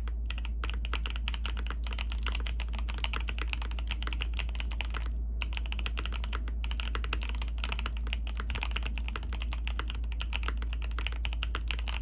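Fast, continuous typing on a mechanical keyboard with Fantasy Virus switches: a dense run of keystroke clacks, pausing briefly about five seconds in. A steady low hum sits underneath.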